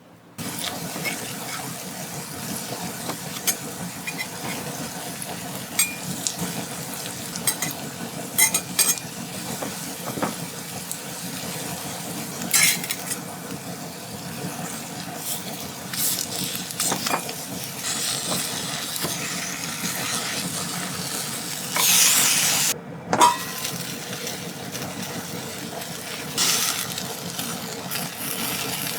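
Food sizzling in a frying pan, with a utensil clicking and scraping against the pan now and then. The sizzle grows louder for about a second some 22 seconds in, then briefly cuts out.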